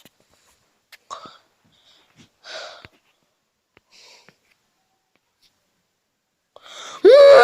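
A person making funny vocal noises: a few short, soft breathy puffs, then, about seven seconds in, a loud pitched squeal that rises sharply.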